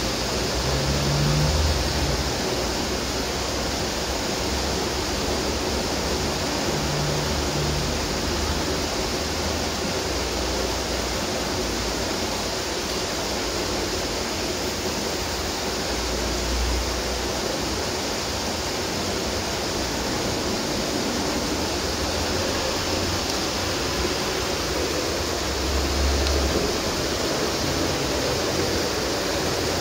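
Steady rushing of water spilling into the canal, with low rumbles of cars crossing the bridge overhead a few times, the loudest near the start and about 26 seconds in.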